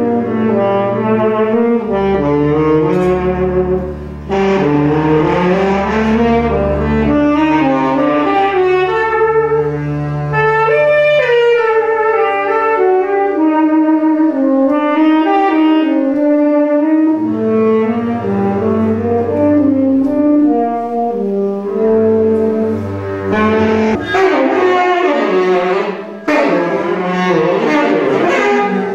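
Instrumental music: a melody moving from note to note over low held bass notes.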